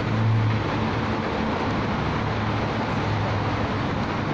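Road traffic: a steady low engine hum over a constant rushing noise of passing vehicles, the hum strongest in the first moment and easing off later.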